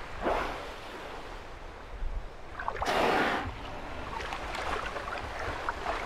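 Killer whales exhaling as they surface in a lead in the sea ice: two rushing blows about three seconds apart, the second longer and louder.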